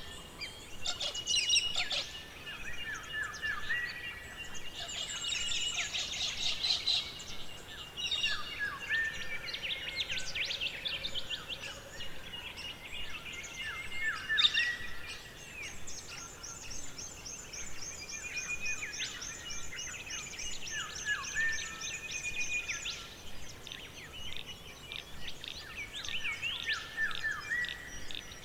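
Several songbirds calling and singing together over a steady forest background hiss, with repeated short falling whistles, a held high note, and a long fast high trill running for several seconds past the middle.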